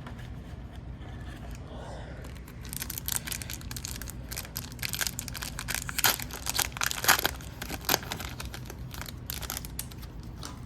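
Upper Deck hockey card pack wrapper being torn open and crinkled, a rapid run of crackles from about two and a half seconds in.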